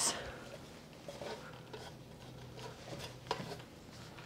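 Roasted mushrooms being tipped into soup in an Instant Pot: a few soft scattered taps and scrapes, with one sharper knock about three seconds in, over a faint steady low hum.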